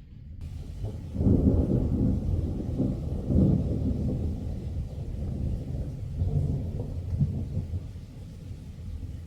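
Thunder: a long, low rolling rumble that builds about a second in, peaks over the next few seconds, and rolls on in several smaller swells before fading.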